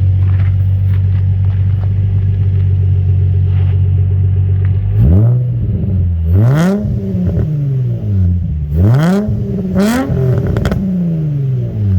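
Nissan 350Z's 3.5-litre V6 idling steadily through DC Sports headers, Motordyne ART pipes, a Y-pipe and single-exit exhaust, then revved four times in two quick pairs from about five seconds in, settling back to idle after each.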